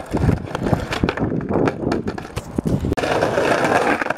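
Skateboard rolling over rough paving: a steady, gritty wheel rumble with a few sharp knocks from the board.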